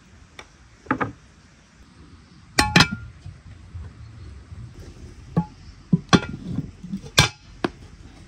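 Cookware clinking and knocking: about eight sharp clinks spread through, some ringing briefly, the loudest a quick pair near the middle and another about six seconds in.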